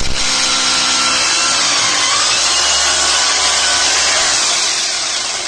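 Rotary hammer drill with a masonry bit boring a hole into a plastered wall for a wall plug. The drill runs loud and steady, easing off right at the end.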